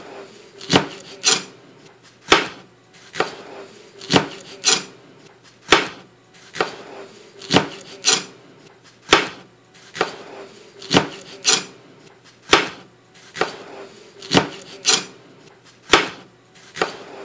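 Knife chopping bell peppers on a cutting board, the blade knocking on the board in an uneven rhythm of one to two strokes a second, sometimes in quick pairs.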